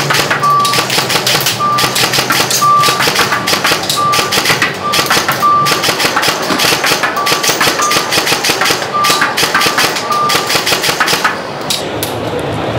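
Airsoft rifle with a drum magazine firing rapid shots at an electronic target board, over short repeated electronic beeps from the target unit. The shooting stops about a second before the end.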